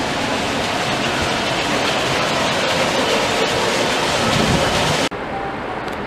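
Railway station ambient noise: a steady, loud rushing hiss. About five seconds in it cuts off abruptly and a duller, slightly quieter steady noise takes over.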